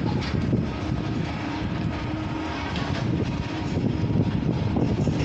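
Construction-site noise: a machine engine running steadily with a low rumble, with a few brief clatters over it.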